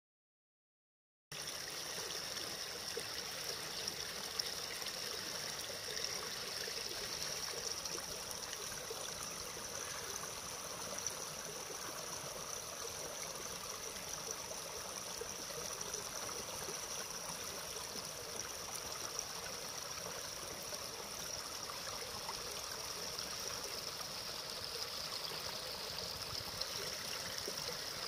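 Small creek running over rocks and a low ice-crusted ledge: a steady rush and splash of water that starts suddenly about a second in.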